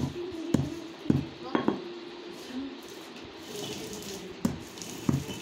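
Hand-turned stone quern grinding gram: stone grinding against stone, with sharp knocks about twice a second that pause for a couple of seconds midway and start again near the end.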